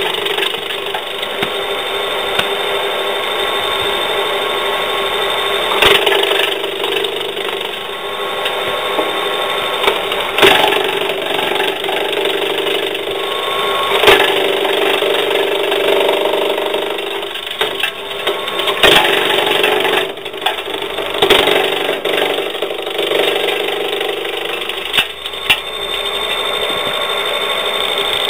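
Electric-motor-driven branch chipper running and chipping branches fed into its chute: a steady whir with continuous wood crackling and splintering, and about six sharp cracks as pieces are cut.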